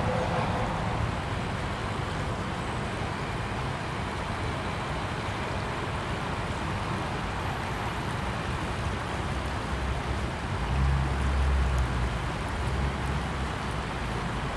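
Shallow, fast-flowing river water rushing steadily. A low rumble swells twice near the end.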